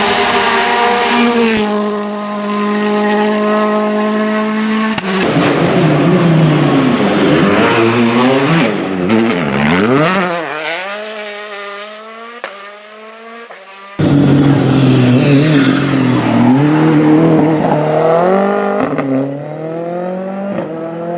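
World Rally Car engines at high revs: one held at a steady pitch, then pitch sweeping up and down through gear changes as cars pass, one fading away before the sound cuts abruptly to another loud car about two-thirds of the way in.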